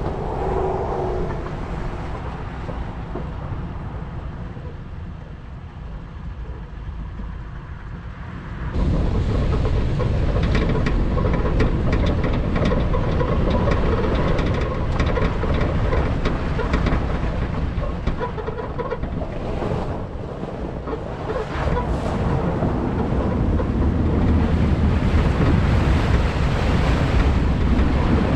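Toyota 4Runner driving on a rough dirt road, heard from outside on the hood: a steady low rumble of tyres and wind on the microphone, with many small clicks and rattles. The sound jumps louder about nine seconds in and grows louder again near the end as the truck rolls into a shallow creek crossing.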